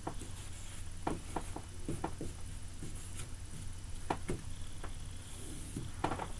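Dry-erase marker writing capital letters on a whiteboard: a string of short squeaky strokes and taps, with a longer stroke near the end as the word is underlined.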